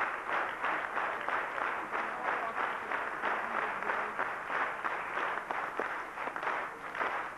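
Audience applauding, a dense mass of clapping whose loudness pulses a few times a second.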